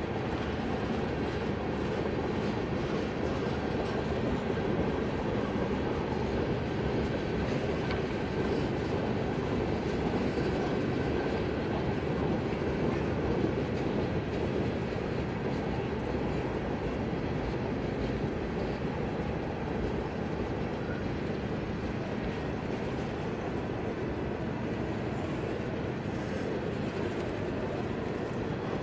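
Freight train cars rolling past over a grade crossing: a steady noise of steel wheels running on the rails, with no change in level throughout.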